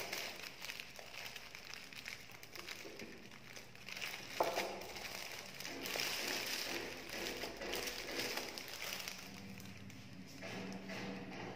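Metallic foil gift wrap crinkling and rustling as hands tie a ribbon around a wrapped mug, with one sharp tap about four seconds in.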